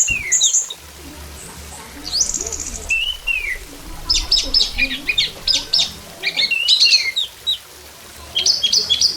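Orange-headed thrush singing a varied song in about five short phrases: high whistled slurs mixed with quick chattering trills, with brief pauses between phrases.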